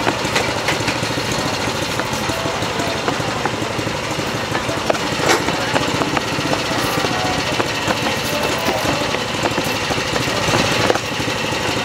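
A small engine running steadily close by, a dense rattling drone, with a few short sharp clicks.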